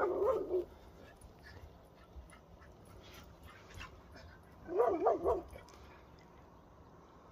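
Labrador retriever barking at a deer: two short bursts of a few quick barks each, one right at the start and another about five seconds in.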